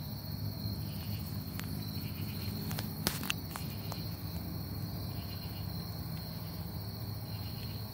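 Crickets trilling steadily at one high pitch in the night background, with a few sharp clicks between about one and a half and four seconds in.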